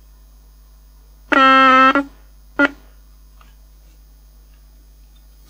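Crown portable cassette recorder's speaker giving out a loud, steady buzzing tone for under a second, then a short blip about half a second later, over a faint mains hum. It is a fault sound that the repairer puts down to something he disturbed when lifting off the circuit board.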